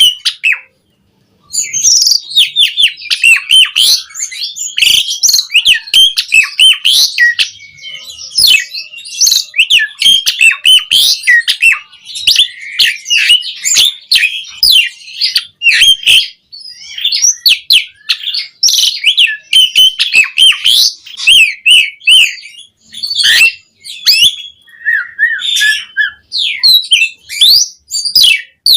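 Asian pied starling (jalak suren) in full song: a fast, almost unbroken stream of chirps, gliding whistles and sharp clicks, packed with phrases mimicked from other birds. It starts after a short silence about a second in.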